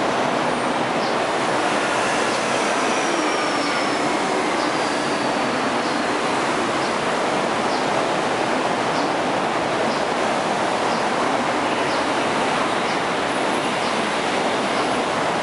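Steady railway noise of a train, with faint squeals falling in pitch in the first few seconds and faint high ticks repeating at an even pace.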